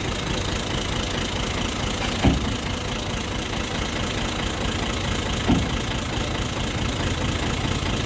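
An engine running steadily, with two sharp knocks about three seconds apart.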